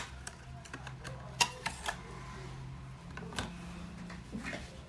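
A few sharp clicks and taps of small hard objects being handled during a phone repair, spaced irregularly, over a steady low hum.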